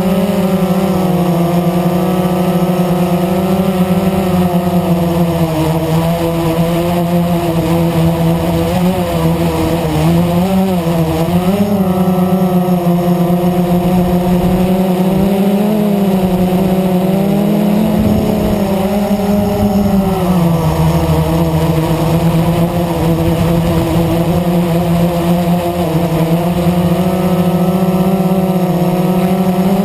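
Blade 350 QX quadcopter's four electric motors and propellers buzzing, heard from the camera mounted on the drone itself. The pitch wavers up and down with throttle changes, about a third of the way in and again past the middle.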